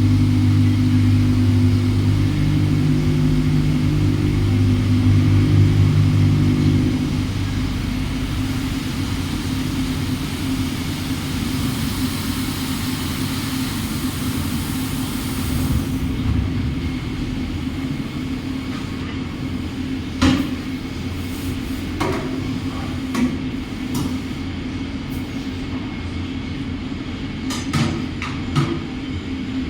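CNC machine running: a steady low machine hum, loudest for about the first seven seconds, then a quieter steady run with a few sharp knocks in the second half.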